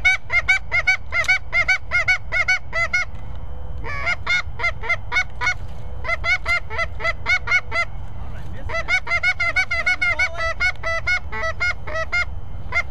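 Goose honks, quick and evenly spaced at about four a second, in runs broken by short pauses about three and eight seconds in, over a low wind rumble.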